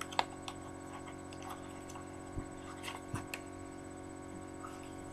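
A small cardboard product box handled in the hands, giving a few faint, light taps and clicks over a steady electrical hum.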